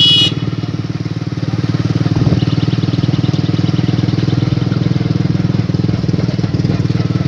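Motorcycle engine running steadily under way, with a rapid even firing beat. A short high-pitched beep sounds right at the start.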